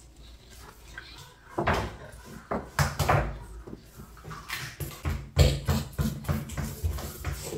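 Kitchen handling noise: steel cookware and utensils knocked and set down on the counter, a handful of sharp knocks and clatters, the loudest about five and a half seconds in.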